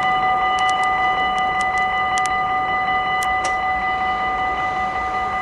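NS VIRM double-deck electric intercity train approaching: a steady high-pitched whine of several tones held at constant pitch, with scattered light clicks.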